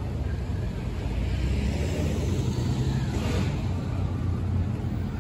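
Steady low rumble of city street traffic, with a brief hiss of a vehicle passing about three seconds in.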